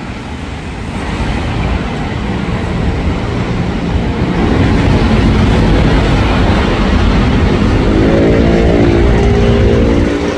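Train running through the station: a loud rumble that builds over the first few seconds, joined in the last few seconds by a whine of several tones rising slightly in pitch.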